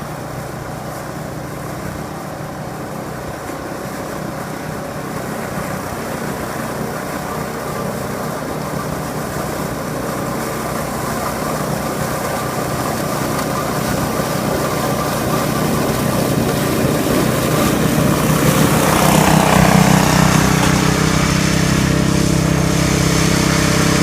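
Ariens 926 two-stage snowblower engine running steadily, getting gradually louder, with a rush of noise about two-thirds of the way through.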